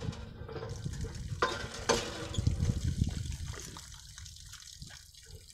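Water running and splashing from a hand pump's spout as a buffalo works the pump handle with its horns, with two short knocks about one and a half and two seconds in; the flow grows fainter in the last couple of seconds.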